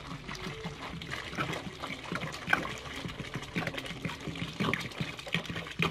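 Water pouring from a plastic bottle into a basin of foamy soap mixture, splashing and trickling unevenly as it goes in.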